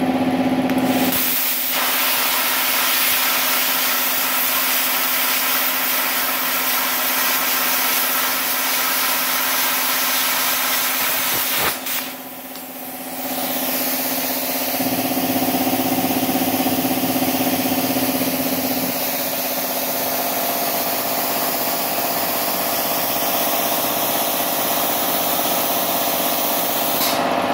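Air plasma cutter cutting a steel flat bar: a loud, steady hiss under a steady hum. About twelve seconds in it stops with a click and drops briefly, then a steady rush of air comes back and cuts off suddenly near the end.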